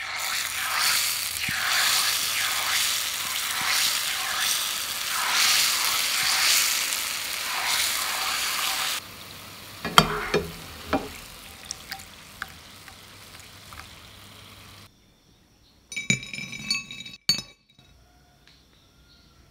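Flour-and-water batter dripped from a whisk into hot cooking oil, sizzling and crackling loudly for about nine seconds as the tempura scraps fry. The frying then drops to a quieter sizzle while a mesh skimmer clinks against the pan lifting the bits out, and a short run of ringing clinks follows near the end.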